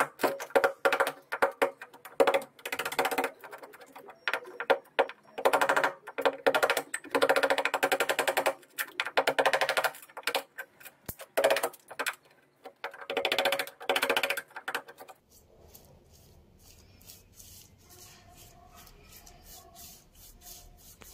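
Hammer tapping a wood chisel in rapid runs of strikes, cutting a ridge off the hinge edge of a wooden door. The runs come about a second long with short pauses between them and stop about 15 seconds in, leaving only faint room sound.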